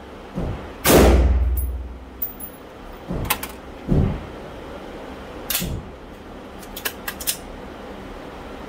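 A single rifle shot from an AR-style rifle about a second in, loud and booming with a reverberant tail, followed by several much fainter clicks and knocks.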